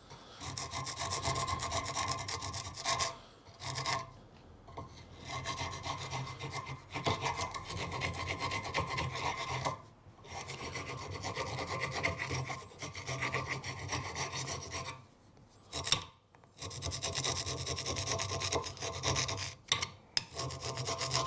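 Surface rust being scraped by hand off a steel brake caliper carrier clamped in a vise: repeated rasping strokes in spells of a few seconds, with short breaks between them.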